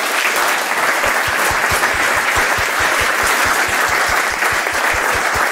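Conference audience applauding steadily after a talk ends, many hands clapping in a dense, even patter.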